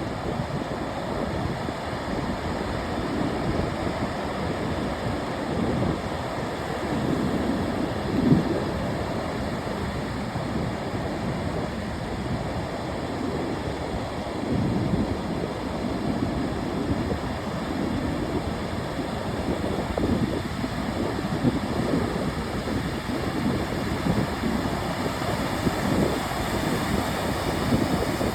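Ocean surf: waves breaking and washing on a beach in a continuous rush that swells and eases every few seconds, with one louder surge about eight seconds in. Wind buffets the microphone.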